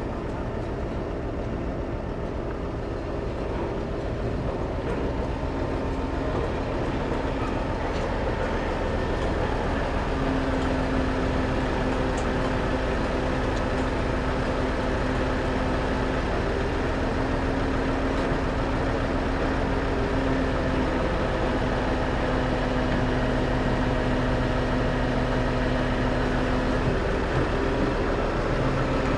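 An engine running steadily, its hum held at one pitch and growing slightly louder over the span.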